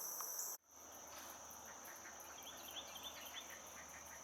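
Faint insect chorus: a steady high-pitched drone. It drops out abruptly about half a second in and comes straight back, followed by a run of short, quick chirps.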